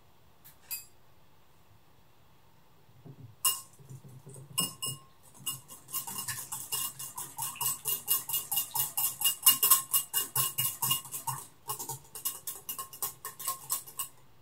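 Wire whisk beating egg yolk, yogurt and mayonnaise in a glass bowl: rapid rhythmic clinks of the wires against the glass, about four a second, with the bowl ringing faintly. The whisking starts about three seconds in and breaks off briefly near the end.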